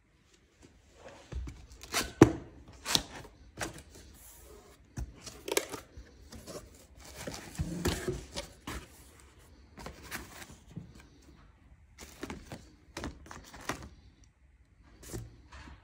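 A cardboard box being opened and unpacked by hand: irregular knocks and rustles of cardboard flaps, inserts, foam sheet and paper. The loudest knock comes about two seconds in.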